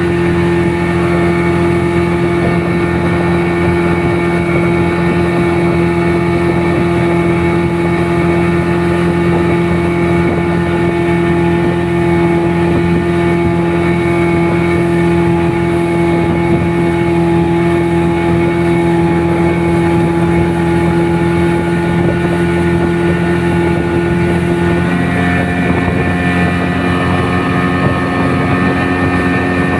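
An engine running steadily and close by, its pitch stepping down about 25 seconds in as it slows.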